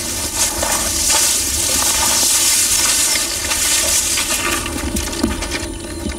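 Dry twigs and leaves rustling and crackling as people push through thorny brush, with a low wind rumble on the microphone. The crackle thins out near the end.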